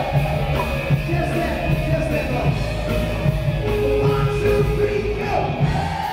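Loud music with a steady beat and a sung vocal line.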